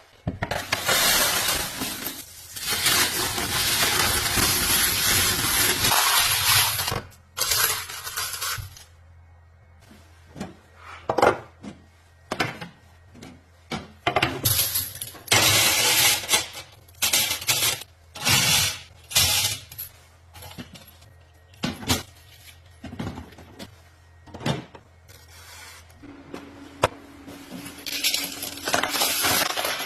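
Brass rifle cases being prepped for reloading: long stretches of metallic rasping as the cases are worked over a steady low motor hum, broken up by many separate clinks of brass cases knocking and dropping.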